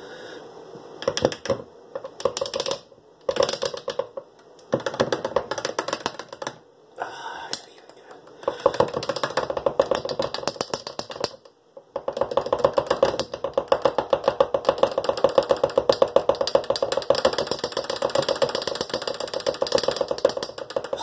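Metal spoon stirring fast in a tall glass of chocolate egg cream, clinking rapidly against the glass in spells of a few seconds with short pauses between.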